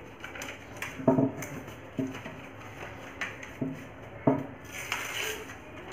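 A sheet of paper being handled and pressed flat against a tabletop: light rustling with a handful of sharp taps, about one a second.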